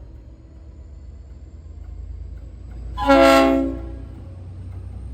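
Leslie RS5T five-chime air horn on a V/Line N-class diesel locomotive sounding one short chord blast about three seconds in, over the locomotive's steady low rumble.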